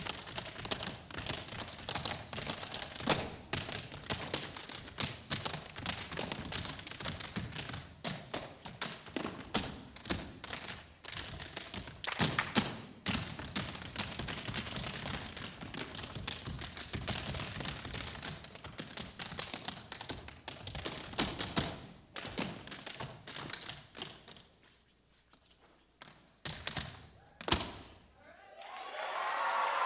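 Tap shoes of several dancers striking a stage floor in fast unison rhythms with no music, the taps thinning out and going quieter about four-fifths of the way through before one last loud stamp. Applause starts to rise right at the end.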